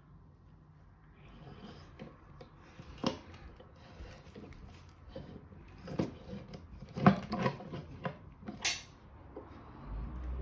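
A metal screw hold-down clamp being tightened onto a wooden board, its handle turning with rubbing and scraping and a handful of sharp clicks and knocks, the loudest about seven seconds in.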